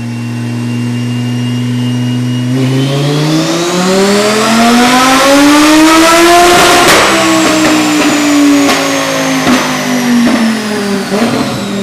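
Twin-turbo Audi R8 V10 on the dyno making a full pull. The engine holds a steady note, then revs up for about four seconds with a high whine rising alongside it. It peaks and then winds down slowly, with several sharp pops as it slows.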